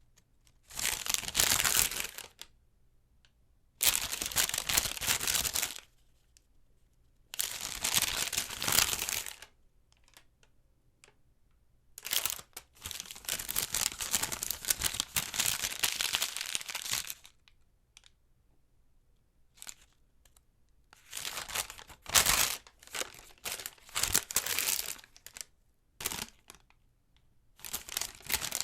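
Paper sales receipt strip being handled and crinkled in several separate bursts of rustling, the longest lasting about five seconds, followed near the end by shorter, choppier crinkles.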